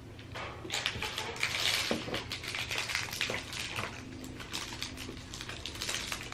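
Crinkling and crackling of a shiny foil candy wrapper being unwrapped by hand, in a dense run of small crackles starting about half a second in.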